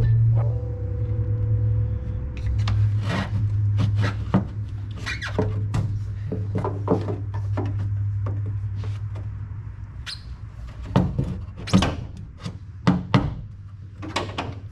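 Scattered knocks and taps of hand work on sheet metal over a low steady hum that fades away about ten seconds in, then a few sharper clanks near the end.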